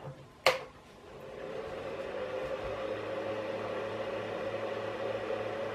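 Power switch on a Creality CR-10S 3D printer's control box clicking on about half a second in, then the printer's cooling fans spinning up into a steady whirring hum.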